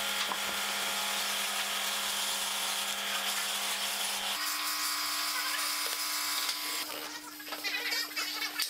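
Cordless drill running steadily as it drills into a clear plastic router base plate. The motor's pitch steps up sharply about four seconds in, and it turns to irregular scraping and clicking near the end.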